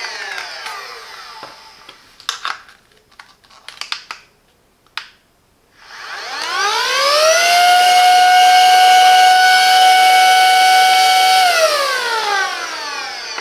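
Silvercrest SHM A1 cordless handheld vacuum's motor: a whine falling away as it spins down, a few clicks of handling, then it is switched on and the whine rises to a steady high pitch for about four seconds before falling again as it is switched off and runs down.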